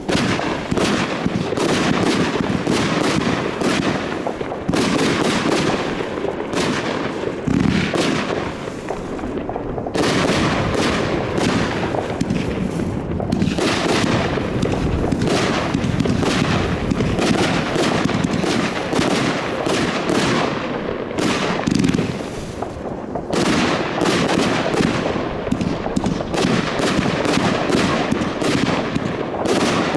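Consumer fireworks barrage firing in rapid, near-continuous succession: dense volleys of bangs and crackle, broken by a few brief lulls.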